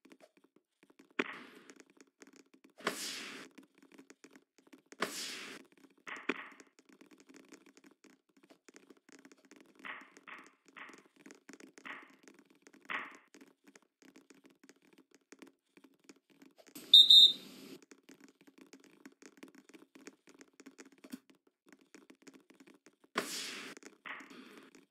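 Indoor volleyball play: the ball is struck hard a handful of times, each hit a sharp smack echoing in the gym. About 17 seconds in a referee's whistle blows once, briefly, the loudest sound.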